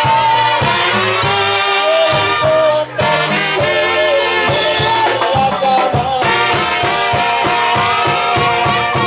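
Mexican banda brass band playing live: trumpets and clarinets carry the melody over a tuba bass line and a steady drum beat.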